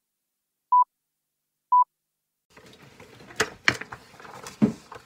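Two short, steady electronic beeps a second apart, then a pause. From about halfway come rustling and a few sharp knocks as the recording phone is handled and set in place.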